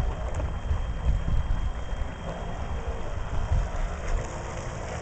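Wind buffeting the microphone over the faint, steady hum of a fifth-scale model runabout's electric drive as the boat runs across the water. The hum grows a little stronger about halfway through as the boat comes closer.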